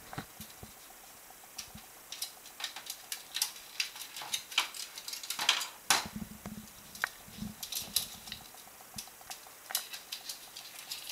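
A black-tailed prairie dog's claws clicking and scrabbling on hard plastic play tubes and a parquet floor: a run of quick, irregular clicks and taps, densest and loudest around the middle.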